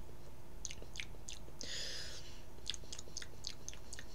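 Close mouth sounds of chewing a rose-hip-flavoured chocolate snack: soft scattered wet clicks and smacks, with a short soft hiss about two seconds in.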